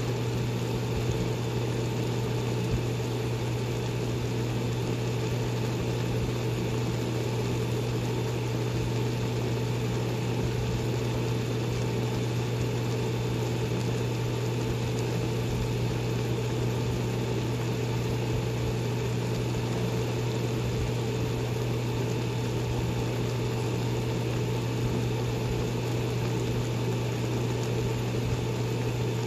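Steady low mechanical hum with a faint hiss.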